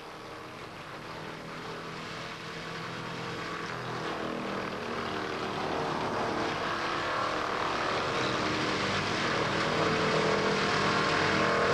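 A tractor engine running steadily, driving a PTO-powered wood chipper (an Entec Chippet PTO Hydraulic), growing steadily louder.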